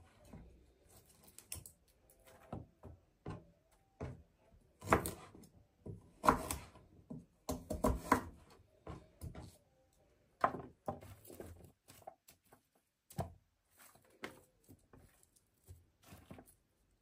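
Vegetables being handled and set down on a metal roasting tray: irregular short knocks, clicks and rustles, a few louder thunks in the middle.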